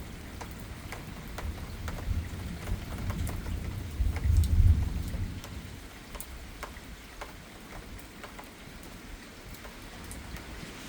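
Easing thunderstorm rain, with scattered drops tapping close by, and a low rumble of distant thunder that swells about four seconds in and then fades.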